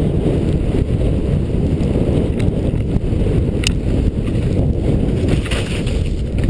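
Steady low wind rumble buffeting the action camera's microphone while skiing down a snow slope, with a single sharp click about three and a half seconds in.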